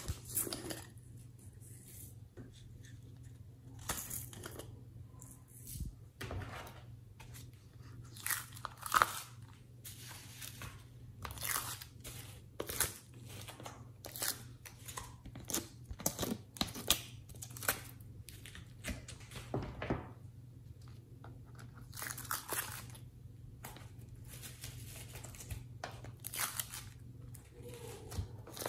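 Soft clay handled from plastic piping bags and pressed by fingers into a plastic plate mold: irregular bursts of crinkling plastic and sticky squishing.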